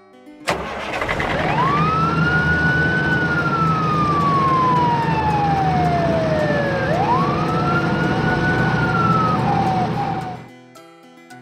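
Fire engine sound effect: a wind-up siren over a steady engine rumble. It starts with a sharp click about half a second in, rises quickly, falls slowly for several seconds, rises again, and cuts off about a second before the end.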